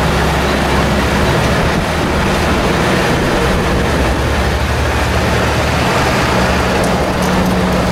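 A convoy of diesel fire engines driving slowly past, a steady low engine drone under constant road and tyre noise.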